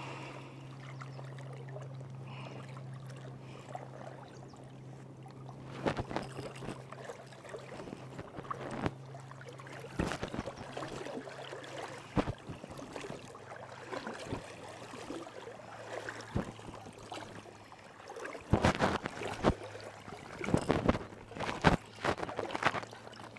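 Steady low hum of a distant motorboat engine across the water, weakening about two-thirds of the way through, with sloshing and splashing from legs wading through shallow water, busier near the end.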